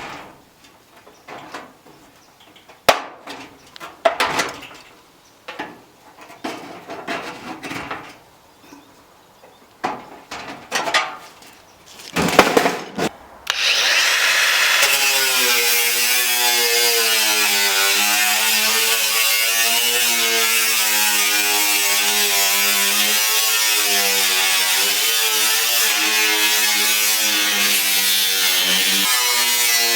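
Handling knocks and clicks on sheet metal, then about 14 seconds in a power tool starts cutting the sheet metal of a fluorescent light fixture, running steadily with a wavering whine over a harsh hiss.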